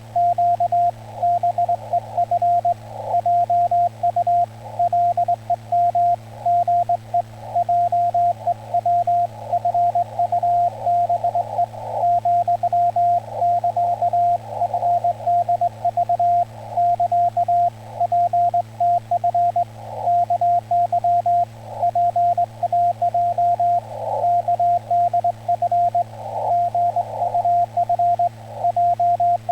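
Amateur radio Morse code (CW) in Korean Hangul Morse: a single steady beep keyed on and off in dots and dashes, at a brisk sending pace. Patches of receiver band noise hiss come and go around the tone, with a low steady hum underneath.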